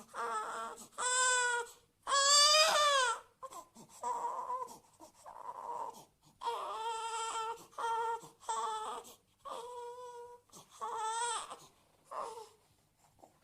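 A baby crying in a run of short, pitched wails with breaths between them, the loudest and most strained cry about two seconds in. Softer whimpering follows before the wails pick up again, then trail off near the end.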